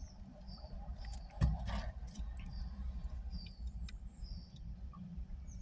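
Small birds fighting, giving short high chirps every half second or so, over a steady low rumble. A brief thump about a second and a half in is the loudest sound.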